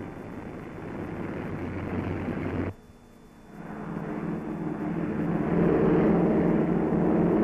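Lockheed Constellation's four Wright R-3350 radial piston engines running with propellers turning. The sound cuts off abruptly about two and a half seconds in, then the engine drone builds to a loud, steady full-power sound as the plane takes off.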